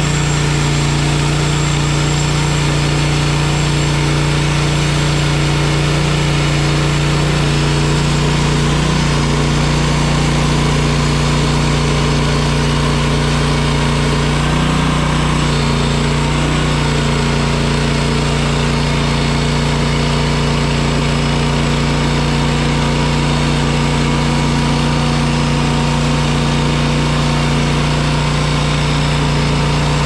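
Wood-Mizer LX55 band sawmill running steadily under load, its engine holding an even pitch as the band blade cuts lengthwise through a log.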